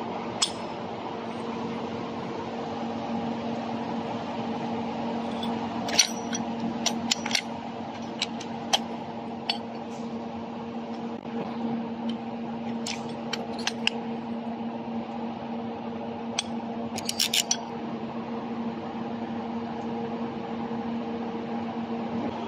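Light metallic clicks and clinks of thick laser-cut steel pieces being handled and set down on a concrete floor, some coming in quick clusters, over a steady machine hum with a low tone.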